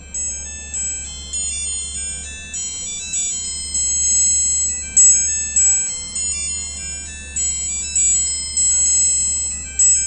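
Message tone number 4 of a Nokia super mini phone playing from its tiny speaker: a high-pitched chiming ringtone melody of struck notes, each fading, about one to two notes a second.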